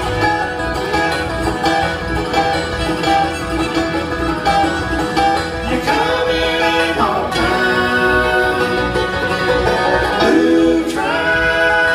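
Bluegrass band of fiddle, banjo, mandolin, guitar, bass and dobro playing an instrumental break, with a few sliding notes.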